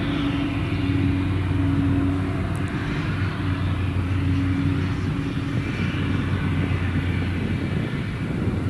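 Claas Jaguar 970 self-propelled forage harvester chopping maize, its engine running steadily under load as a constant low hum.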